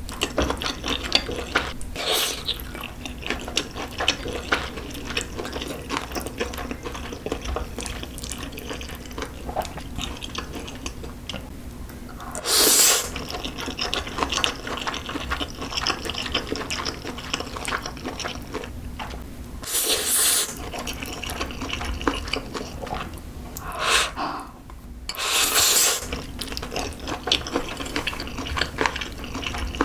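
Close-miked mukbang eating sounds: slurping spicy instant noodles topped with melted corn cheese, with wet chewing between. A handful of loud slurps, each about a second long, are spaced through it.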